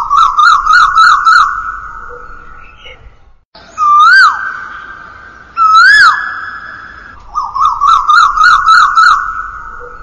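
Asian koel calling: a rapid series of about six rising notes, then two single rising-and-falling calls about two seconds apart, then another rapid run of rising notes near the end. Each group trails off in a long echo.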